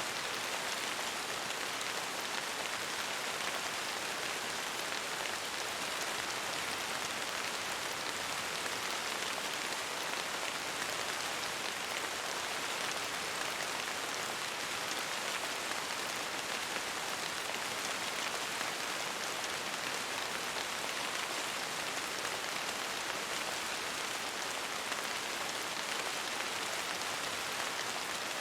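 Steady rain: an even, dense hiss of many drops that neither builds nor fades, with no thunder.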